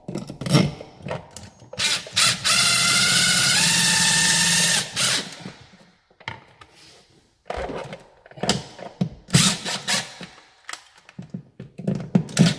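Power drill driving the 6-32 mounting screws of a GFCI receptacle into its electrical box: one steady run of about two and a half seconds whose pitch steps up partway through. Clicks and knocks of the screws and receptacle being handled come before and after it.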